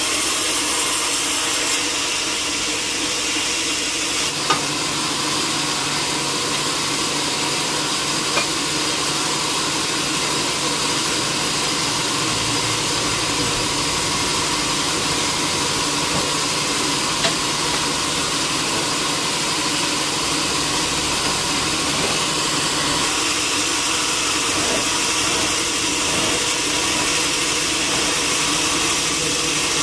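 Sawmill machinery running steadily, a loud motor hum over a rushing noise, with a few sharp knocks.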